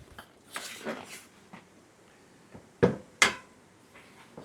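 Handling noise from a bicycle wheel being picked up and shown: soft rustling, then two sharp knocks about half a second apart near three seconds in.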